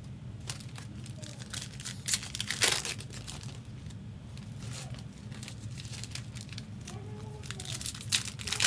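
Trading card pack wrappers crinkling and tearing as packs are handled and opened, a run of sharp crackles that is loudest about two and a half seconds in and again near the end.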